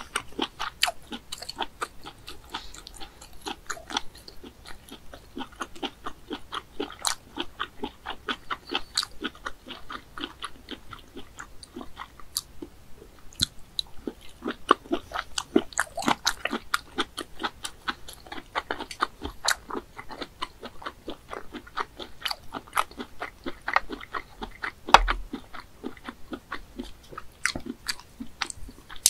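A person chewing and biting pieces of snail meat: a steady run of short mouth clicks, several a second.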